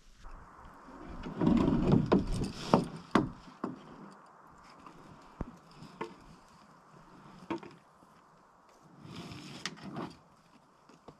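Wooden canoe bumping and scraping against shoreline rocks as it is landed, with a paddle and gear knocking on the hull. A cluster of bumps comes a second or two in, then single hollow knocks every second or two and a short rustle near the end.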